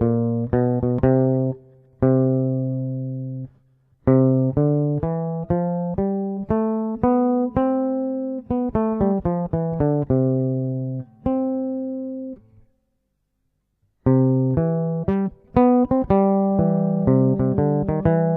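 Luna Tattoo bass ukulele with flatwound metal strings, tuned like a guitar's four lower strings, plucked in short melodic phrases of single deep notes that each ring and fade, with a warm, smooth jazzy tone. The playing stops briefly twice, just before four seconds in and for about a second past the middle.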